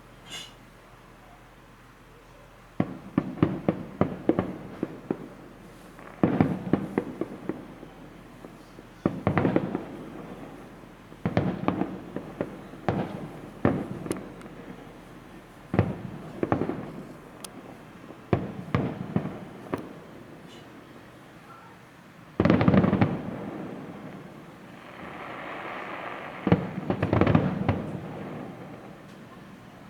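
Aerial fireworks shells bursting in a series of sharp cracks and deep booms, coming in clusters every second or two after a quiet first few seconds. The loudest boom comes about three quarters of the way through, followed by a stretch of crackling from a crackle-effect shell.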